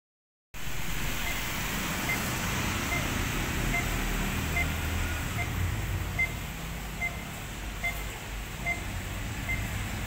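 Audible pedestrian crossing signal beeping: short, high beeps repeating steadily, a little more than one a second, over a low background rumble.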